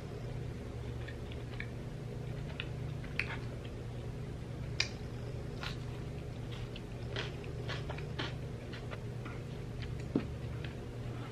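A person chewing close to the microphone: soft, wet mouth clicks and smacks, scattered and irregular, with a few sharper clicks, over a steady low hum.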